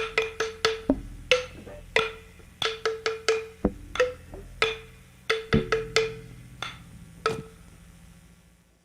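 Music of wood-block percussion: irregular sharp knocks, each with a short ringing pitch, over a low sustained tone. The music cuts off abruptly near the end.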